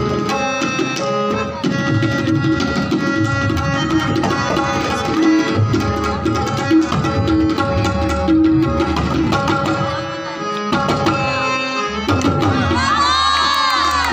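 Tabla played in a fast, dense solo over a steady harmonium lehra holding sustained notes. Near the end a wavering tone rises and falls in arcs over the music.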